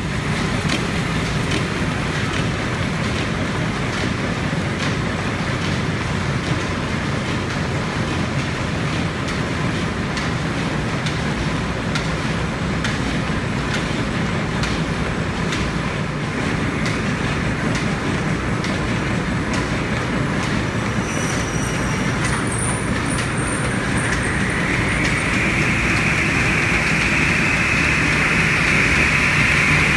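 Lineshaft machinery running: an electric motor drives the constantly turning line shaft, flat belts and pulleys, giving a steady mechanical hum with scattered ticks and clicks. Over the last several seconds a higher, hissing whirr grows louder.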